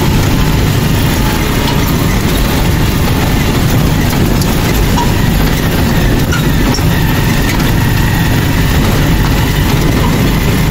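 Tricycle's motorcycle engine running steadily while riding over a dirt road, heard from inside the sidecar cab, with the low rumble of the ride.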